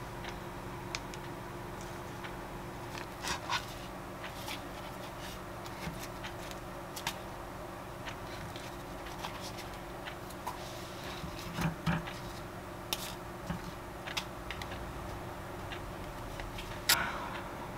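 Wooden skewers clicking and tapping against a takoyaki pan as cooked takoyaki are picked out and lifted into a bowl: scattered light clicks and knocks, a few louder ones near the middle and near the end, over a steady low hum.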